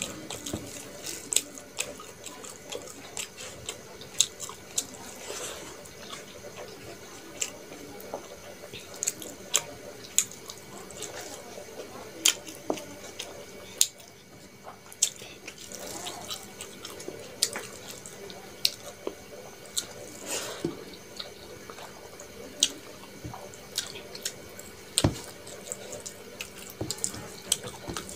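Close-miked eating by hand: wet squelching of rice and curry being mixed with the fingers on a steel plate, with chewing and lip smacks, heard as many sharp, irregular clicks.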